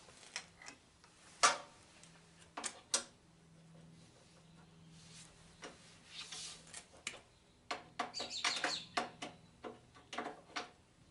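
Irregular clicks, knocks and light metallic rattles from handling tools and machine parts during assembly, the sharpest knock about a second and a half in and a busier clatter with a brief squeak near the end.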